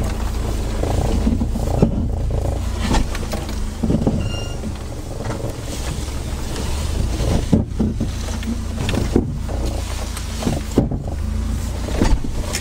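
Subaru Forester's flat-four engine running low and slow as the car crawls downhill over rocks. Tyres crunch over loose stones, with scattered knocks and clunks from the suspension and body, the sharpest about two seconds in and near the end.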